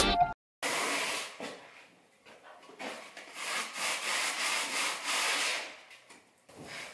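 Rough scraping against a surface: one stroke of about a second, then a longer spell of about three seconds from about three seconds in, as work goes on overhead at a doorframe. Backing music cuts off at the very start.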